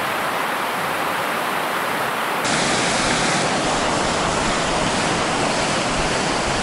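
Steady rush of water pouring over a reservoir weir, a dense even roar of falling and churning water. About two and a half seconds in it deepens slightly, with more low rumble.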